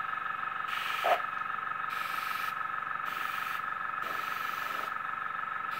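Handheld air gun running with a steady high whine as it blows across wet resin, with one short squeak about a second in.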